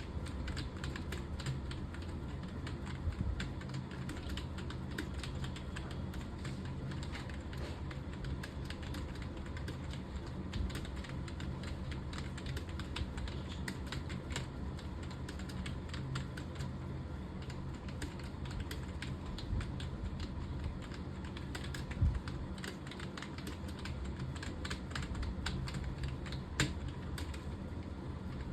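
Computer keyboard typed at a steady, rapid pace: a continuous run of keystroke clicks over a low steady hum.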